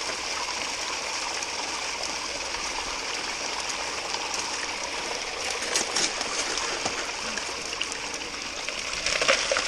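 Steady rush of running water, with a couple of faint clicks about six seconds in.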